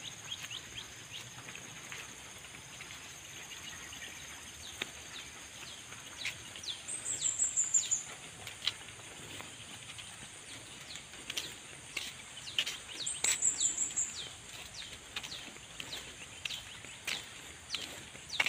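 Songbirds calling: a short, high, stepped trill about every six seconds and many quick falling chirps in between, over a steady high buzz of insects.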